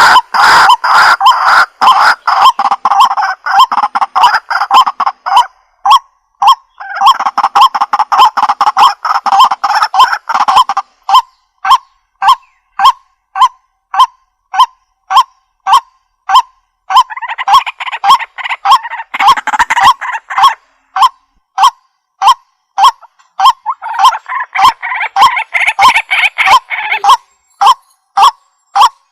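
White-breasted waterhen calling: a steady series of short, repeated notes about two a second, with denser, overlapping bouts of calling at the start and three more times.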